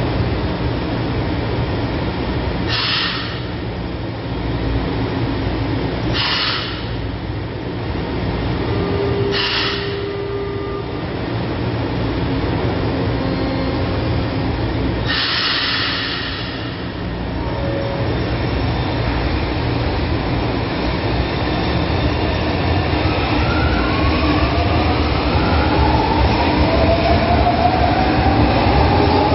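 A São Paulo Metro Line 1 train standing at the platform with a steady low hum and four short hissing bursts, the last one longer. Late on it starts to pull away, with a rising motor whine that grows louder as it accelerates.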